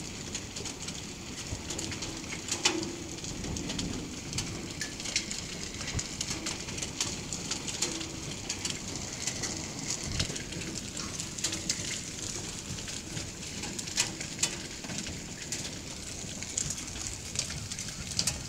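Hail and rain falling hard on a concrete driveway and stone paving: a steady hiss dense with sharp ticks of hailstones striking the ground, with a couple of louder cracks, about 2.5 and 14 seconds in.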